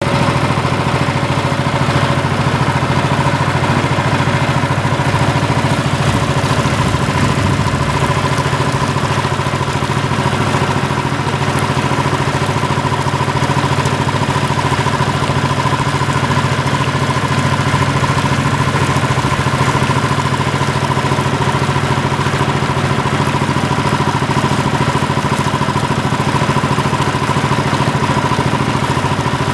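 Steady, unbroken mechanical hum like an engine running, with a low drone and a steady higher tone.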